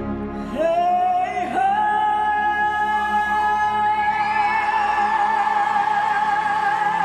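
A woman's voice sliding up into one long, high, operatic-style sung note and holding it steadily, over sustained backing music.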